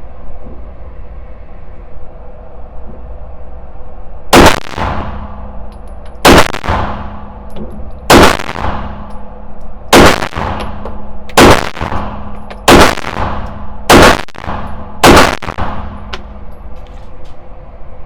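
Glock 34 Gen 5 9mm pistol fired eight times, each shot sharp with a ringing tail. The shots come about two seconds apart at first and speed up to about one a second.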